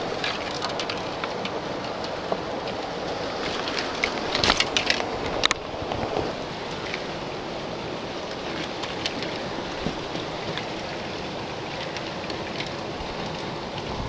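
Scraping, crackling and snapping of boots and hands on wet rock and ferny undergrowth during a climb down a steep cliff on a rope. A cluster of louder scrapes and snaps comes about four to five and a half seconds in, over a steady rushing background.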